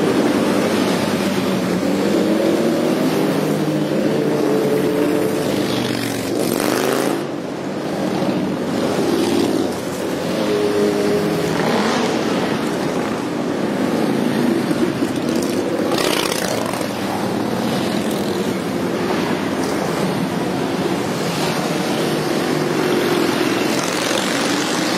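A large group of cruiser and touring motorcycles riding slowly together, many engines running at once with shifting pitches. There are brief louder whooshing swells about 7, 12 and 16 seconds in.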